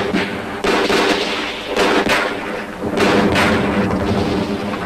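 Battle sound effects of gunfire and explosions: several sharp reports about a second apart over a continuous dense rumble.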